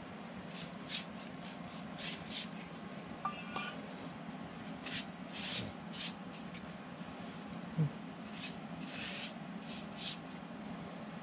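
Hand deburring of the freshly machined edges of a cast iron straight edge: a long, irregular series of short scraping strokes of a hand tool drawn along the metal.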